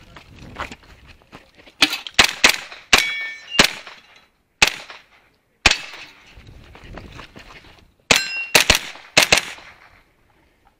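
Pistol-calibre carbine firing a string of about a dozen shots, in quick pairs and triples with gaps of a second or so between groups. A couple of the shots are followed by a short metallic ring from hit steel targets. The firing stops about a second before the end.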